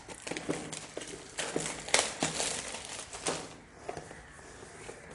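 Crinkling of plastic wrap, with a few light knocks, as hands turn a cardboard smartphone box over.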